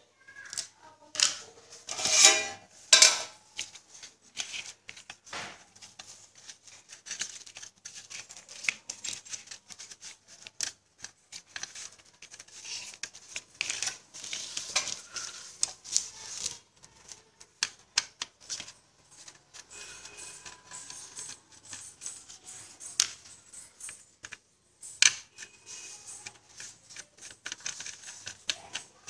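Irregular clicks, scrapes and rattles of a screwdriver and screws working on the sheet-metal case of a desktop computer power supply as it is unscrewed and opened up, with a few louder metallic knocks about two to three seconds in.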